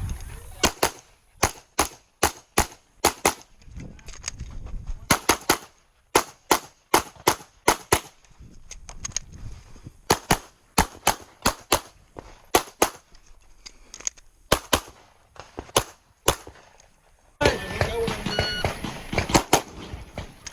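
9mm Glock 34 pistol fired rapidly during a timed USPSA stage, the shots mostly in quick pairs, with short pauses between groups while the shooter moves to the next position.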